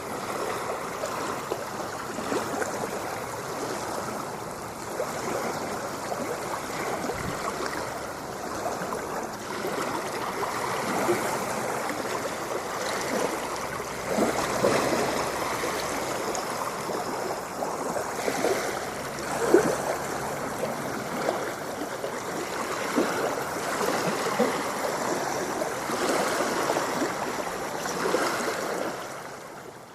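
Shallow water gurgling and lapping steadily, with many small splashes throughout.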